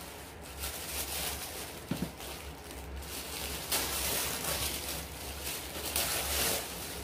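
Tissue paper and a cardboard box being handled, rustling in bursts that are loudest about four and six seconds in.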